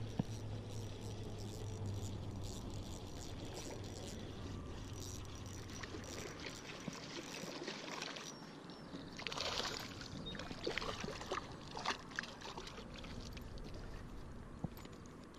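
Water splashing and trickling, with scattered clicks and several louder splashes. A low steady hum runs underneath for the first few seconds and then stops.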